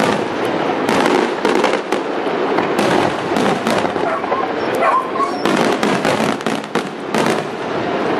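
Aerial fireworks shells bursting in rapid, overlapping bangs with crackling, many reports a second and no pause.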